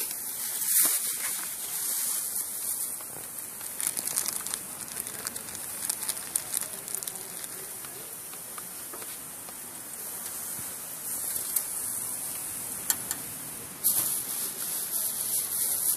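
Chicken breast sizzling on a hot gas grill's grate: a steady high hiss with scattered crackles and pops.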